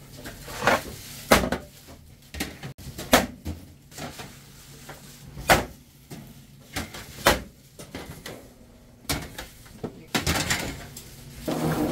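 Metal sheet pans of baked buns knocking and scraping as they are pulled from a deck oven and slid into a metal tray rack: a string of sharp metallic knocks a second or two apart. Near the end a steady machine hum starts.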